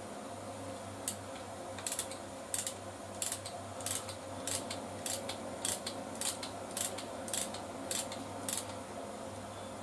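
Hand tap being turned into a drilled 4.9 mm hole to cut an M6 thread, giving short dry clicks about two a second as the tap wrench is worked round.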